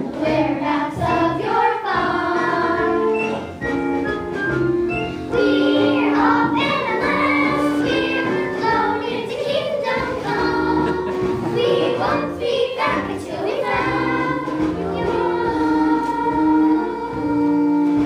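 A children's chorus singing a musical-theatre number together, with held notes over instrumental backing.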